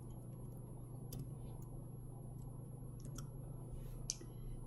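Several scattered soft clicks of a computer keyboard and mouse while code is being edited, over a steady low hum.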